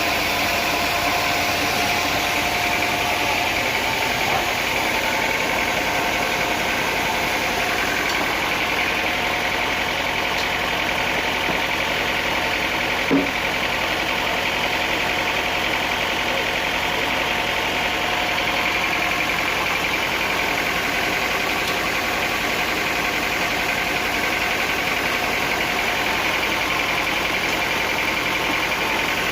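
Sawmill machinery running steadily: a constant mechanical drone with a faint steady whine, broken once by a short sharp knock about halfway through.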